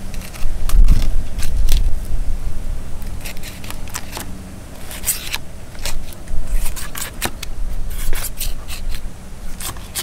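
Dexter fillet knife cutting along a large mangrove snapper over its rib cage: irregular crackling scrapes and clicks as the blade works through the scales, skin and rib bones. There is a low rumble about a second in.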